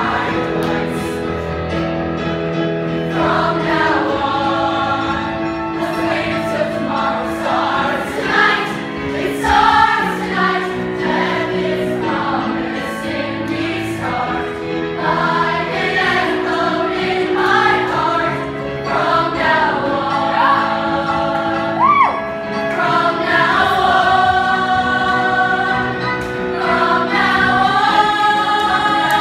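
A group of voices singing a show tune together over instrumental backing.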